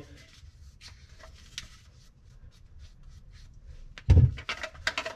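PVC drain pipe parts being handled and fitted: faint clicks and plastic rubbing, then a few louder dull knocks from about four seconds in as the pipe is moved and bumped.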